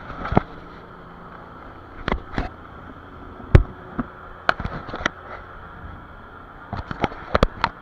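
Irregular sharp knocks and clunks on a small fishing boat, about a dozen in all, the loudest about three and a half seconds in and several close together near the end, over a steady low motor hum.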